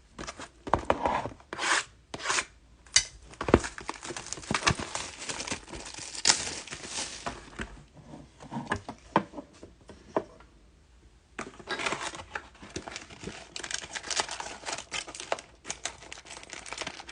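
Plastic wrapping being torn and crinkled as a sealed hobby box of trading cards is opened and its packs handled. The rustling comes in busy spells, with a short lull about ten seconds in.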